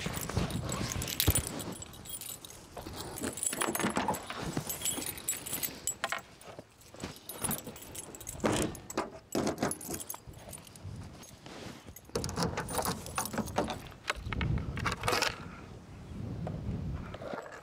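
Jangling and clinking handling noises as a shoulder bag is slung on and gear is taken from a small hatchback, with a car's rear hatch opened and then shut with a heavier thud near the end.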